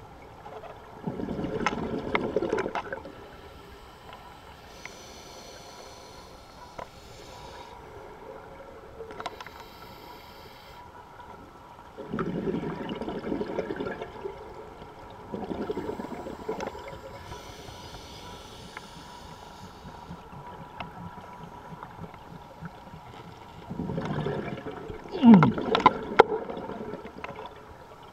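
Scuba diver breathing through a regulator underwater: four bursts of gurgling exhaust bubbles, with fainter hissing inhalations between them. The last exhalation, near the end, is the loudest.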